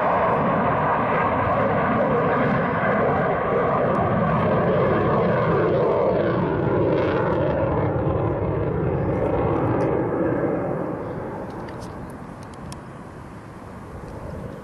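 Eurofighter Typhoon's twin EJ200 turbofan jet engines loud during a display pass, the pitch of the roar slowly shifting. About ten seconds in, the sound falls away and fades as the jet moves off.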